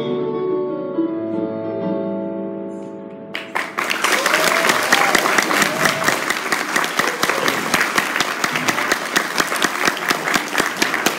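Electronic keyboard holding its closing chords, which fade away; then audience applause breaks out about three and a half seconds in and keeps going.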